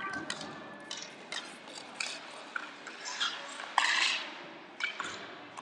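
Inline hockey play: sticks clacking and tapping against each other and on the rink floor in quick irregular knocks. There is a louder scraping clatter about four seconds in.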